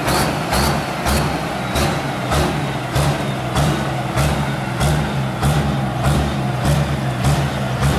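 Pulling tractor's engine running as the tractor drives slowly along at low speed.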